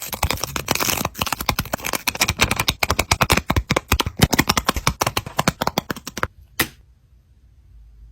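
Packaging crinkled and rustled by hand in a fast, dense crackle for about six seconds, followed by a single click.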